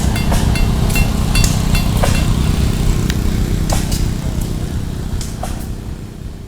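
Irregular metallic strikes with a short ring, a blacksmith's hammer on hot iron and anvil, over a steady low engine rumble. The sound fades out near the end.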